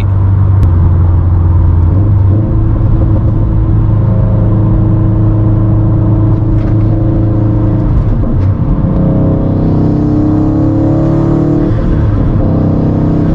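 Subaru WRX STI's turbocharged flat-four, fitted with an FP Blue turbo and running on E85, pulling under way as heard from inside the cabin over a steady low road drone. The engine note holds steady, breaks off briefly about eight seconds in, then climbs gently in pitch under acceleration before easing again near the end.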